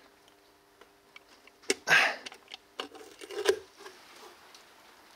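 A few sharp clicks and knocks, with one louder, short clatter about two seconds in, over a faint steady hum.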